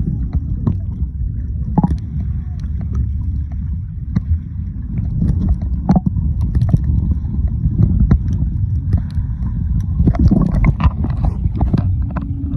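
Muffled water sloshing and gurgling, mostly deep rumble with little high sound, broken by scattered knocks and clicks.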